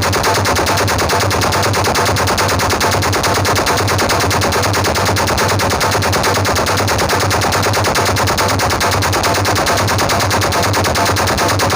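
Rapid, unbroken machine-gun fire from a film soundtrack, played loud through an outdoor-cinema sound system with heavy bass.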